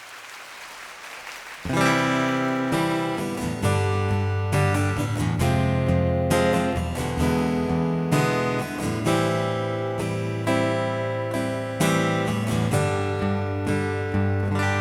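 Faint hiss, then about two seconds in an acoustic guitar starts the song's instrumental intro, chords struck about once a second and left to ring.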